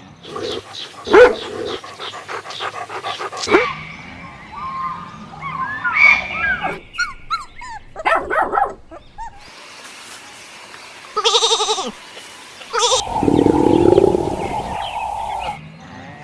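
A run of short farm-animal sound clips cut one after another, each with a different animal calling; the calls are loud and change abruptly several times.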